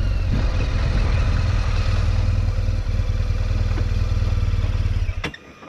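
BMW R 1200 GS flat-twin boxer engine running at low revs as the motorcycle rolls slowly over gravel, then switched off abruptly about five seconds in.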